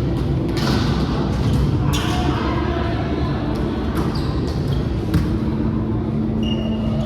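Volleyball being struck and bouncing on an indoor court, with a few sharp, echoing hits spread through steady hall noise.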